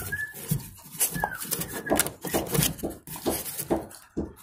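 A dog whining in a few short, high whines, among irregular clicks and knocks from handling.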